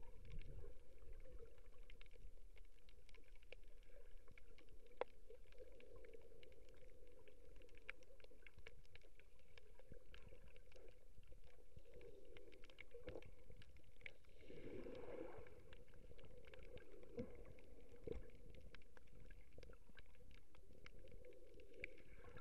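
Underwater ambience picked up by a submerged camera: a muffled low rumble of moving sea water with many scattered sharp crackling clicks. A louder rush of water and bubble noise swells up about fifteen seconds in, then settles.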